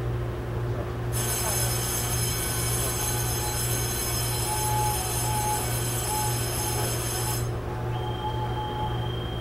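Taiwan Railway EMU700 electric multiple unit heard from inside the car: a steady low running hum. About a second in, a set of high-pitched whining tones comes in and cuts off suddenly around seven seconds, and a single high steady tone sounds near the end.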